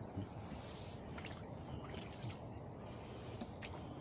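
Rowboat oars dipping and pulling through calm water, with water splashing and dripping off the blades in short splashes about once a second, over a low steady rumble.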